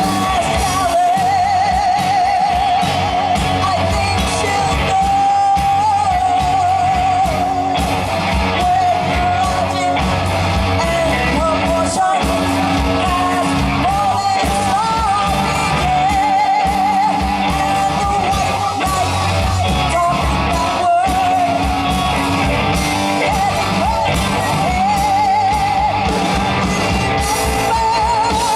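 Live rock band performing, with a singer holding long, wavering notes over electric guitar, bass and drums.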